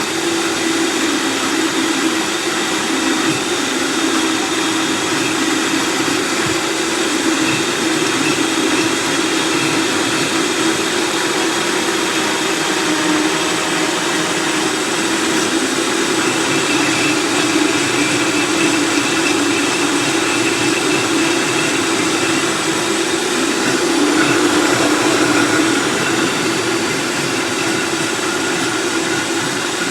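Countertop blender running steadily at high speed, blending a thick load of avocado, banana, spinach, frozen fruit and water: a continuous motor drone that swells briefly about three-quarters of the way through.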